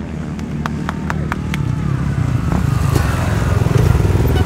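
Dirt bike engines running in a group, a throbbing low rumble that grows louder toward the end. A few sharp clicks come about a second in.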